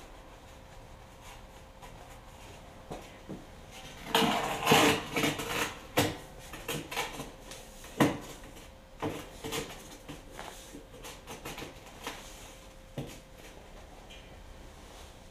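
Firebricks clattering, knocking and scraping against each other and the steel barrel as they are fitted into a ring lining the barrel: a dense burst of clatter about four to six seconds in, a sharp knock near eight seconds, then lighter taps.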